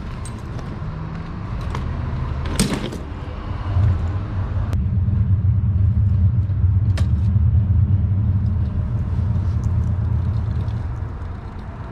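A motor vehicle engine running steadily, swelling about four seconds in and fading near the end, with a few sharp clicks from a bicycle chain being fitted.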